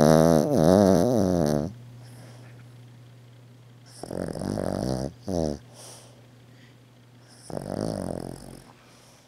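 Maltese dog snoring loudly in deep sleep: three snores, a long one at the start, another about four seconds in that ends with a short extra snort, and a third near the end, each with a wavering pitch.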